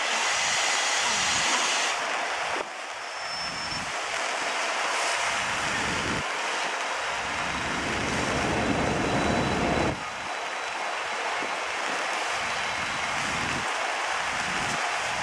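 Wind buffeting the microphone in irregular low gusts over a steady rushing outdoor noise. The level drops suddenly about two and a half seconds in and again about ten seconds in.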